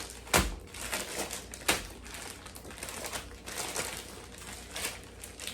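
Plastic zip-top bags of raw chicken crinkling and rustling irregularly as hands massage the seasoning into the meat, with a couple of sharper crackles in the first two seconds.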